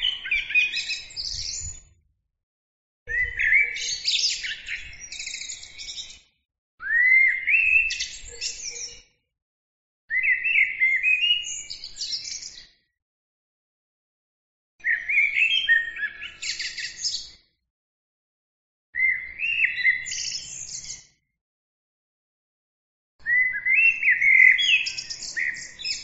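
Eurasian blackbird singing: seven separate phrases of about two to three seconds each, made of gliding fluty notes with higher squeaky notes above, with short silent gaps between them.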